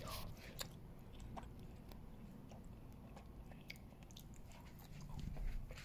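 Quiet room tone with a low rumble, broken by faint scattered clicks and rustles of a phone being handled as it is turned.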